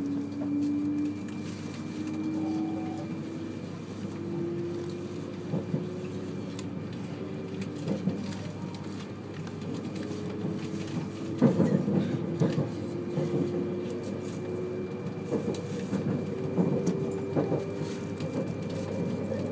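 Inside a 200 series Shinkansen train accelerating: a motor hum rising slowly and steadily in pitch over a rumbling running noise. Short bursts of wheel clatter come through several times, the loudest about twelve seconds in.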